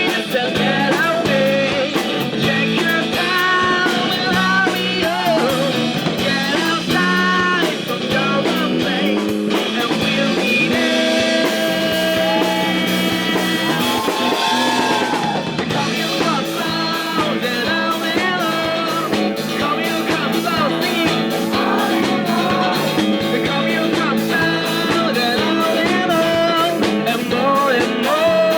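Rock band playing live: electric guitar lines over bass and a drum kit keeping a steady beat.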